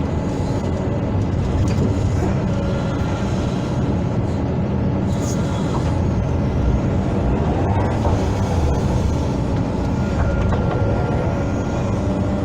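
Hydraulic excavator's diesel engine running steadily with a low, even rumble.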